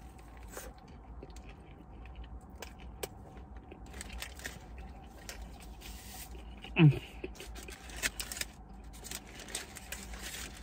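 Close chewing of a big mouthful of burger, with soft mouth clicks and rustles of the paper wrapper. About seven seconds in comes a short hum that falls in pitch.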